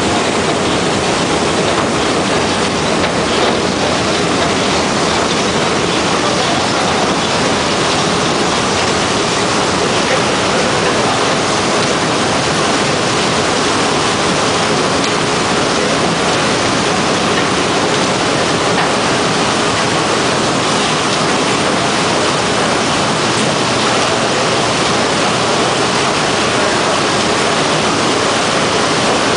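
Potato washer running: a steady rush of spraying and pouring water, with the rumble of the machine and tumbling potatoes underneath.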